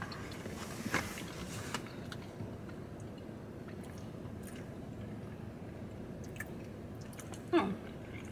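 Chewing a soft, marshmallow-filled cookie sandwich: wet mouth clicks and small smacks over a low steady background hum, with a sharper click about a second in and a brief louder mouth sound near the end.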